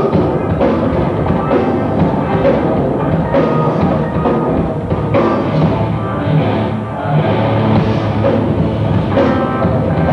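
Live rock band playing loud and continuous, drum kit and electric guitar together.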